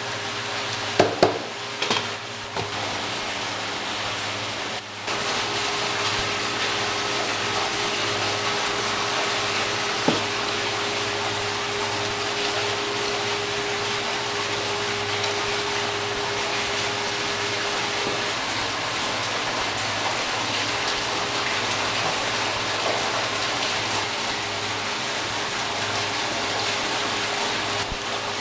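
Steady rush of running water over a low machine hum, with a steady tone that stops about two-thirds of the way through. A few sharp knocks come about a second in, and one more near the middle.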